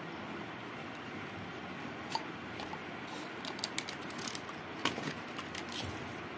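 Small clicks and taps of yellow plastic bit sleeves and a steel masonry drill bit being handled, several of them in the second half, over a steady background hiss.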